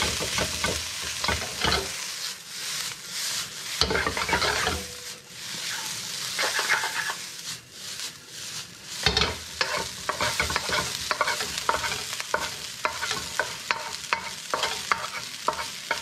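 Rice sizzling in a hot carbon steel wok as a wooden spatula scrapes and breaks it up, with frequent quick clicks and scrapes of wood on steel. There is one heavier thump about nine seconds in, while the rice is being tossed.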